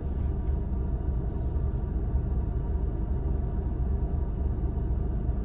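Steady low rumble of a car's engine and tyres heard inside the cabin while driving, with two brief hisses in the first two seconds.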